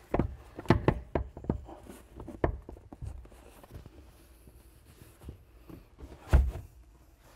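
MINI Cooper rear seat backrest being worked onto its metal hinge bracket: a quick run of clicks and knocks in the first few seconds, then one louder thunk near the end.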